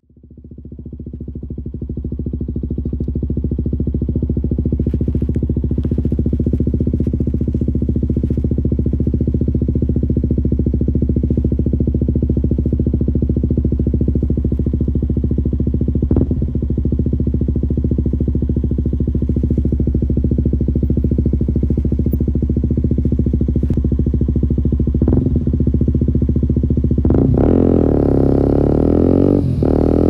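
2017 KTM Duke 125's single-cylinder four-stroke engine idling steadily through an Akrapovic exhaust with a catalyst-delete link pipe, fading in over the first few seconds. Near the end the revs rise as the bike pulls away.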